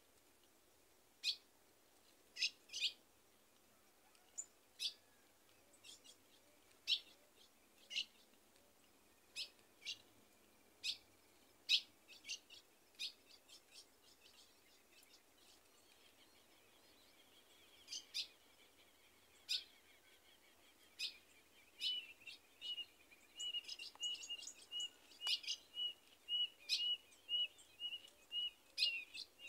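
Ultramarine grosbeaks (reina mora) calling: sharp, short call notes every second or two, then from about two-thirds of the way through a quicker run of notes repeated several times a second.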